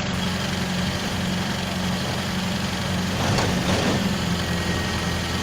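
An engine running steadily at constant speed, with a short burst of rougher noise a little past halfway.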